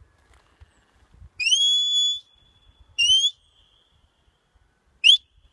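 Sheepdog handler's whistle commands to a working dog: three loud, sharply rising whistles, the first held for most of a second, then a shorter one, then a very short one near the end. In this handler's scheme the whistle tells the sheepdog to stop.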